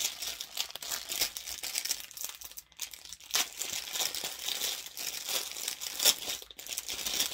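Packaging crinkling and rustling in irregular crackles as a t-shirt is unwrapped and pulled out of it.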